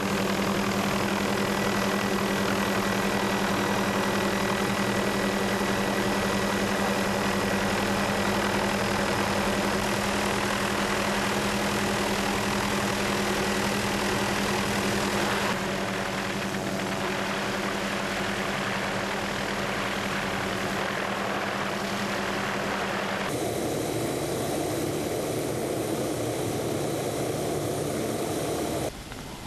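Aircraft engine running steadily, heard from on board: a steady hum over a noisy rush. About twenty-three seconds in it cuts to a quieter rushing noise without the hum.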